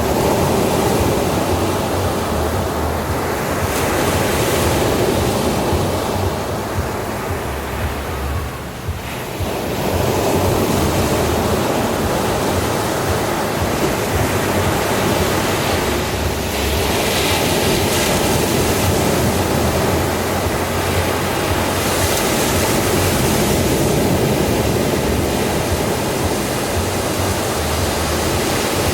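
Ocean waves breaking on a beach, a continuous wash of surf that swells and eases, dipping briefly about a third of the way in before the next wave surges.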